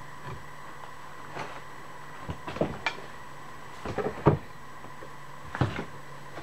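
Irregular clicks and clunks of tools being handled while a measurement is taken, in four small clusters, the loudest about four seconds in, over a steady low hum.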